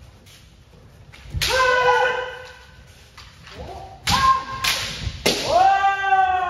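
Kendo practice: sharp cracks of bamboo shinai striking armour, four hits, three of them followed by a long shout from the striker (kiai) that falls in pitch.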